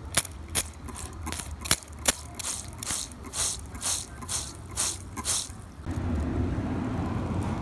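Water sloshing back and forth in a clear plastic tub as a die-cast toy car is pushed through it, about two surges a second, with a few sharp knocks of the car against the plastic in the first two seconds. About six seconds in, the sloshing stops and a steady low hum takes over.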